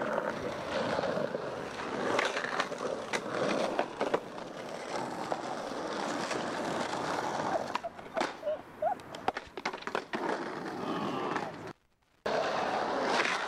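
Skateboard wheels rolling on asphalt: a steady rolling noise with scattered sharp clicks. It cuts out for a moment near the end, then resumes.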